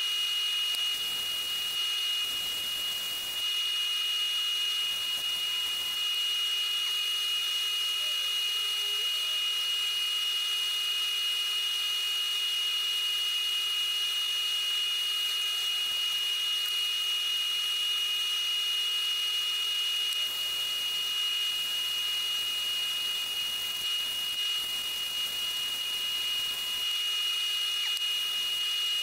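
Wood lathe running at a steady speed with a high, even whine, while sandpaper is held against the spinning wooden workpiece under a steady hiss.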